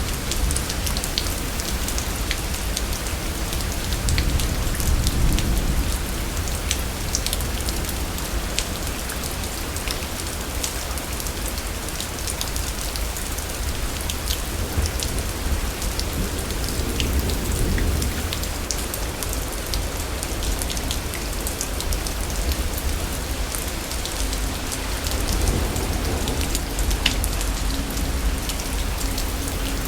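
Steady rain of a thunderstorm, with many individual drops striking and a constant low rumble that swells a few times.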